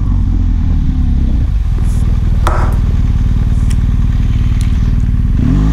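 BMW R1200GS boxer-twin engine running at a steady low speed, its pitch rising near the end as the bike accelerates.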